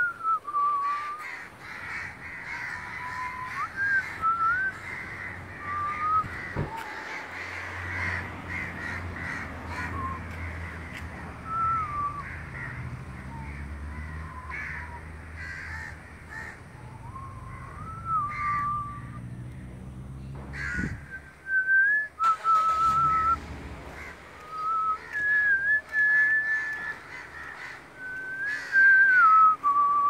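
A series of short, high whistled notes, some wavering and gliding up and down, coming at irregular intervals. A low hum sits under them through the middle.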